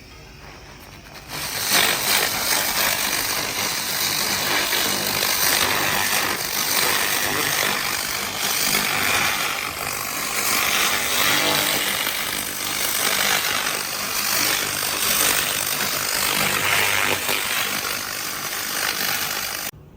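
Handheld laser cleaning gun firing: a loud, steady, dense crackling buzz as the pulsed beam hits the surface. It starts about a second in and cuts off abruptly near the end as the trigger is released.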